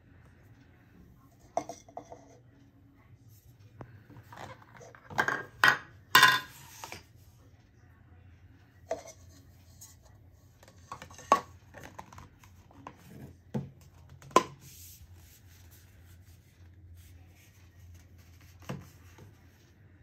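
Hard plastic parts of a DriveMo cordless handheld vacuum being handled, fitted together and set down on a table: irregular clacks and knocks, with a cluster of louder ones about five to seven seconds in, then single knocks a few seconds apart.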